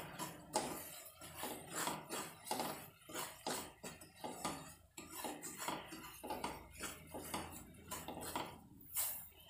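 A spatula stirring and scraping ghee-roasted semolina around a steel kadhai, in short repeated strokes about twice a second.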